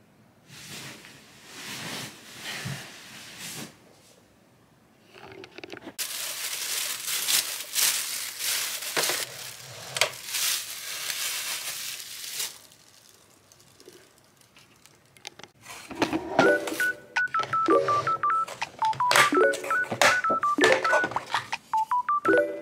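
Rustling and crinkling of plastic, with a louder, denser stretch in the middle. From about sixteen seconds in, a simple beeping electronic tune that steps up and down in pitch and repeats, over crinkling and clicks.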